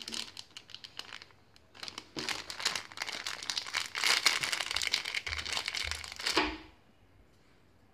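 Thin clear plastic packaging bag crinkling and crackling as fingers handle it and work it open. Busiest and loudest in the second half, it stops abruptly about two-thirds of the way through.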